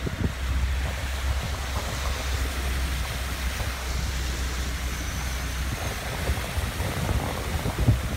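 Heavy rain pouring steadily. A low rumble sits under it for the first six seconds or so, and there is a single thump near the end.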